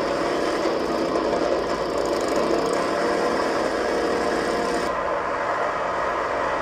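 Motorcycle engine running, from a Harley-Davidson promotional video's soundtrack heard through a conference room's speakers. The sound is steady, and its top end thins out about five seconds in.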